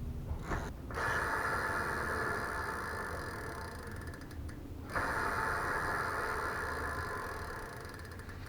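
Bicycle rear freehub ratcheting as the wheel freewheels, a fast, dense buzz of pawl clicks in two runs with a short break about five seconds in. The hub's grease has been swapped for thinner grease or oil to make the freewheel louder.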